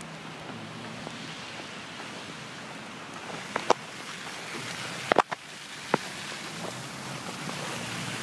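Steady hiss of passing car traffic on a slushy, snow-covered street, with a faint engine hum underneath. A few short sharp clicks come in the middle.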